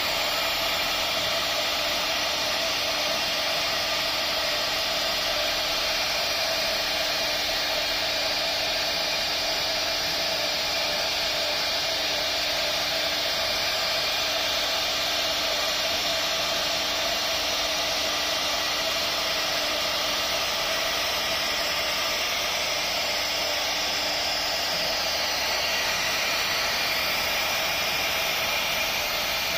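CNC router spindle running at high speed while its fine carving bit mills a 3D relief into a wooden panel. It makes a steady hissing noise that does not let up.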